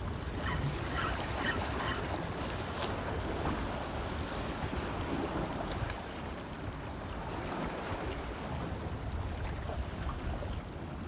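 Heavy surf pounding a harbour breakwater in very high seas, with wind rumbling on the microphone.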